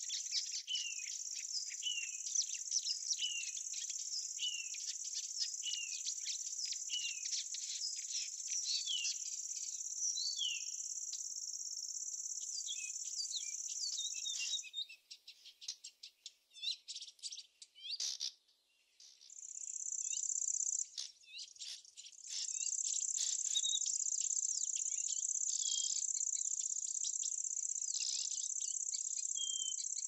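Insects trilling in a steady high-pitched chorus, with small birds giving short falling chirps over it. About halfway through the insect chorus breaks off for a few seconds, leaving scattered chirps, then comes back.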